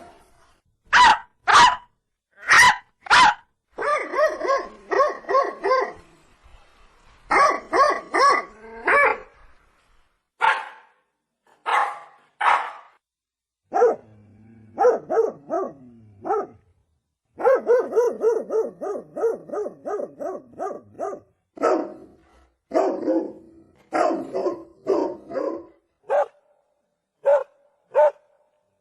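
Dog barking over and over: four loud single barks in the first few seconds, then quick runs of several barks each, broken by short pauses.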